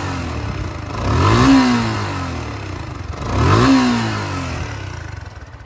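Yamaha YZF-R150's water-cooled single-cylinder four-stroke engine through its stock exhaust, revved twice from idle with quick throttle blips, each rise and fall lasting about a second. It drops back to a lumpy idle near the end.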